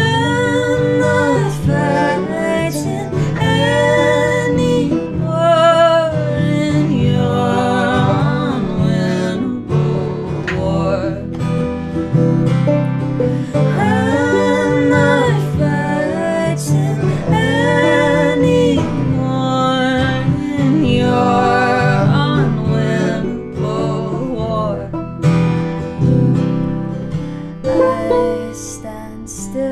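Acoustic guitar and five-string banjo playing an instrumental passage together, with a wavering sustained melody line rising above them several times. The playing thins out near the end.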